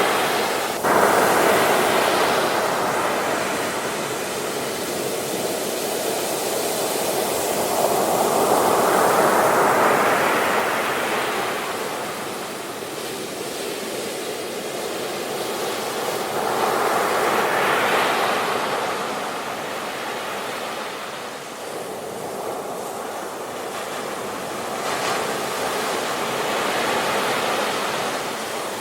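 Sea waves breaking on the shore: a swell of surf about every eight seconds, easing between breaks into a steady wash.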